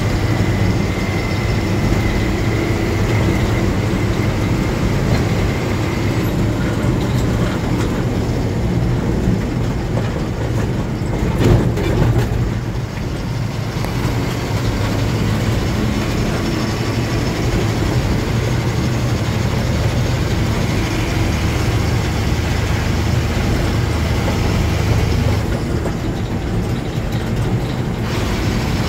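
Heavy lorry's diesel engine running steadily under way, heard from inside the cab as a constant low drone with road noise. A brief louder jolt comes about eleven seconds in.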